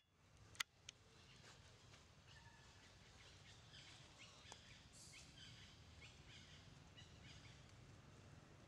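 Faint outdoor ambience with a low steady hum, two or three sharp clicks in the first second, then scattered faint high chirps.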